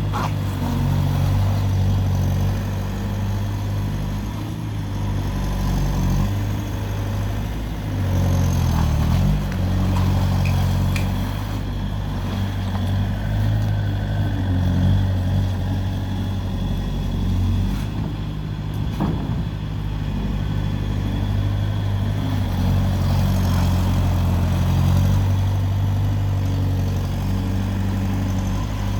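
A 2004 Bobcat S300 skid steer's diesel engine runs steadily throughout, its pitch dipping and rising a few times as the engine speed changes.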